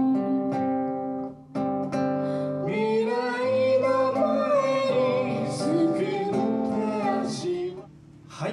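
Live folk song: acoustic guitar strummed and picked, with singing that comes in about three seconds in. The music stops shortly before the end.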